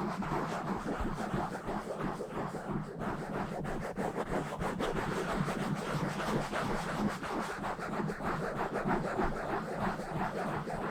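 Fast, rough scratching and rubbing directly on a microphone's grille: a dense, unbroken run of quick scratchy strokes with a low rumble underneath.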